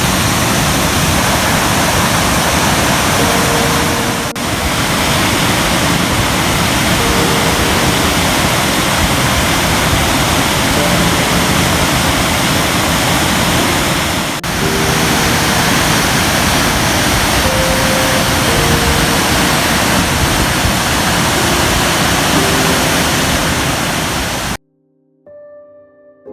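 Loud, steady rushing noise with faint musical notes under it. It cuts off suddenly near the end, and soft piano music begins.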